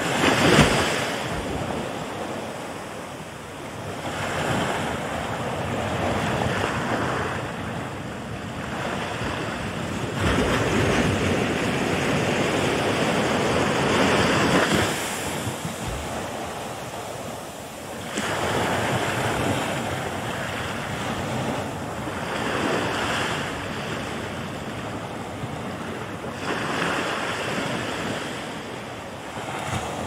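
Ocean surf breaking and washing in, a rush of water that swells and fades in repeated surges every few seconds, the loudest about half a second in.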